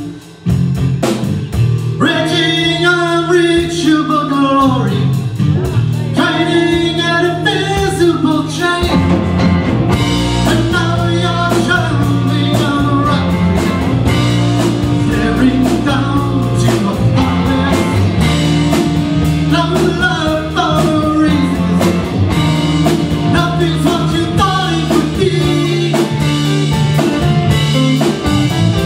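Live rock band playing electric guitars, electric bass and drum kit, with a man singing for the first several seconds and the instruments carrying on alone after that. The music drops out for a moment right at the start.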